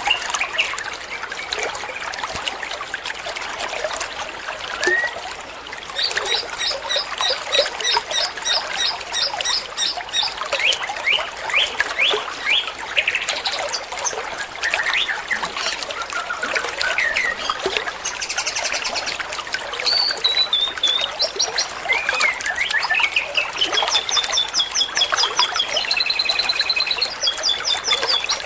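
Trucuan (a bulbul) singing: bursts of rapid repeated chirps and warbling whistles, one long whistle rising and falling near the end, over a steady hiss like trickling water.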